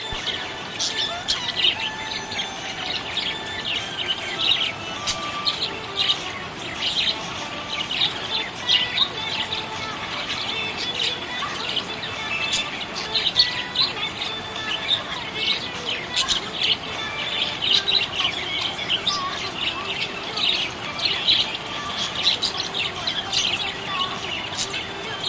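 Budgie chirping continuously, a quick stream of short high chirps and twitters.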